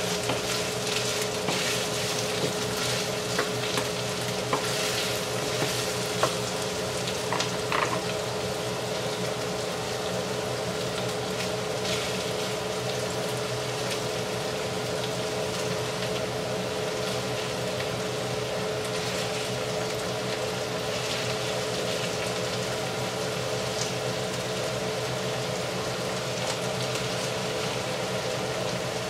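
Beef and diced onion sizzling steadily in a frying pan. There are scattered taps and scrapes of a wooden spatula against the pan in the first several seconds, over a steady hum.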